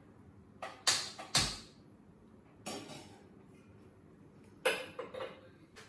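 Metallic clunks and clatter of a steel pot of water being set on a gas stove's grate while the burner is lit with a hand-held gas lighter: two loud knocks about a second in, then lighter knocks near three and five seconds.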